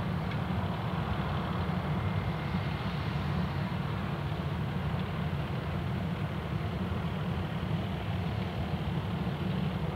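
Virgin Australia Airbus A320-232's IAE V2500 turbofan engines running at taxi idle as the airliner taxis: a steady rumble with a hiss above it.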